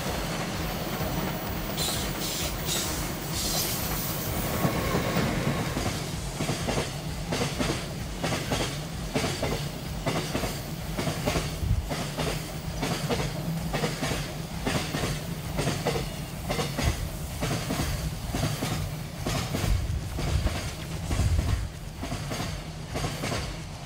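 Container freight train rolling past close by, its wagon wheels clacking in a rapid repeating rhythm over the rail joints under a steady rumble. A faint high wheel squeal comes from the curve in the first few seconds.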